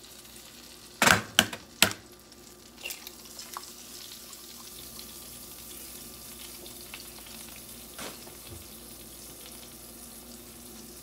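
A nonstick frying pan clanks down on an electric coil burner, three sharp knocks about a second in. Then the heating pan gives a steady faint sizzle, broken by one sharp tap near eight seconds.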